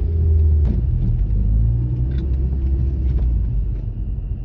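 Volkswagen Polo GTI's engine and road rumble heard from inside the cabin while driving, the engine note rising a little as the car accelerates. A single sharp click comes under a second in.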